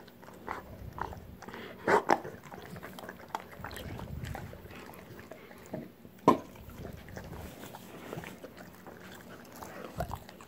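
Rottweiler chewing and biting, with scattered small mouth clicks and a couple of sharper knocks.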